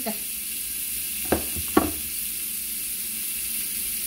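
Diced bacon sizzling steadily as it fries in a frying pan, fried and shrunk down, nearly done. Two knocks about half a second apart come a little over a second in.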